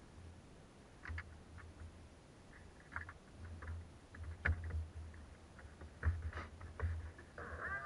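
Faint, scattered small clicks and knocks with low bumps at irregular moments around a canoe lying still on calm water. Music comes in near the end.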